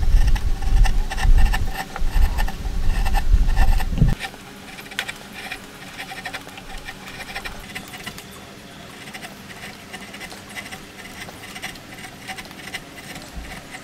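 A wood chisel pushed by hand, paring the end of a timber in a series of short scraping cuts. For about the first four seconds a loud low rumble lies under the strokes and then cuts off suddenly, after which the scraping cuts go on more quietly.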